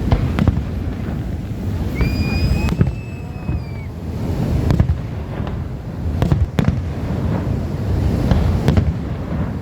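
Fireworks going off: a string of sharp bangs and pops over a constant low rumble. About two seconds in, a whistling firework rises in pitch and then holds its note for nearly two seconds.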